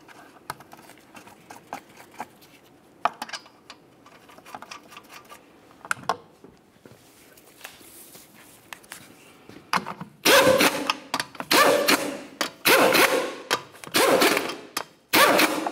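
Faint clicks and taps of lug nuts being threaded on by hand. Then five short bursts of a handheld cordless power tool running the 19 mm lug nuts down against the wheel, one burst per nut, each lasting under a second.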